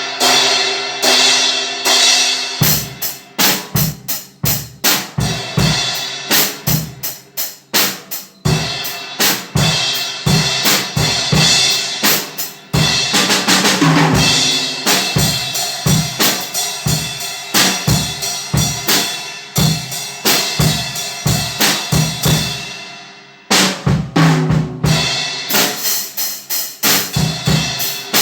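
Drum kit played in a steady groove: bass drum, snare and cymbals struck over a continuous ringing cymbal wash. A longer cymbal crash swells about halfway through, and the playing stops briefly near the end before picking up again.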